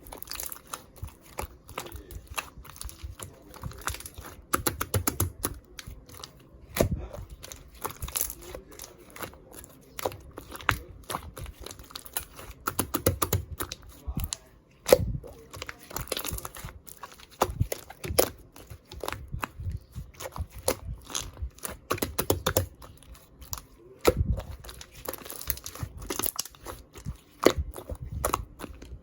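Slime being squeezed, stretched and pressed by hand, giving a dense run of sharp crackling clicks and pops with short pauses between squeezes.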